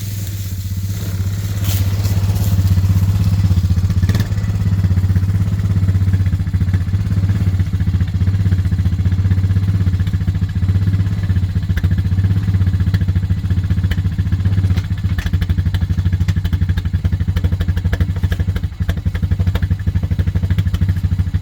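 Troxus e-bike being ridden: a steady low drone of motor and tyres that builds over the first couple of seconds, with a fast flutter, light rattling and a sharp knock about four seconds in.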